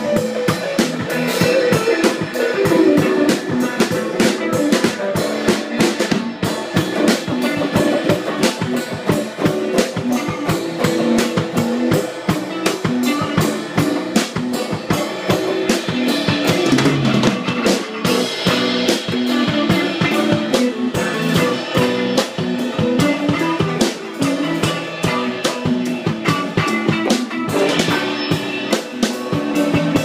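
Instrumental rock jam: a drum kit played hard and fast, with cymbals and toms, together with a distorted electric guitar playing a changing riff.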